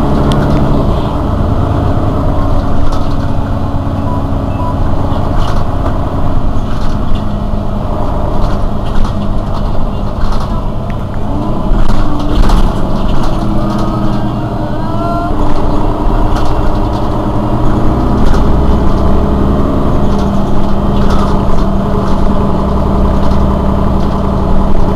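Mercedes-Benz Citaro city bus's rear-mounted diesel engine idling steadily while the bus stands still, with a scattering of short clicks and knocks.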